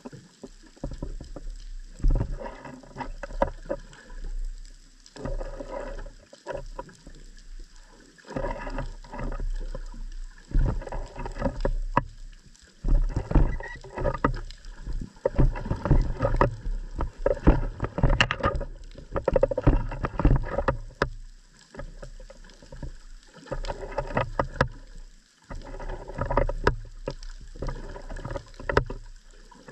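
Underwater sound picked up by a submerged camera: irregular surges of water noise full of crackling clicks, each lasting one to a few seconds, over a low rumble, with short quieter gaps between them.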